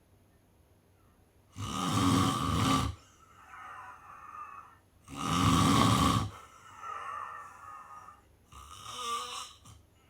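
A sleeper snoring: two loud snores about three and a half seconds apart, each lasting a little over a second, with quieter breathing between them and a third, softer snore near the end.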